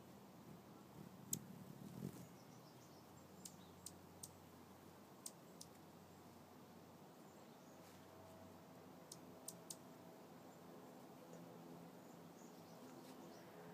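Near silence broken by scattered faint, sharp clicks, a dozen or so, some in quick pairs; faint steady tones come in near the end.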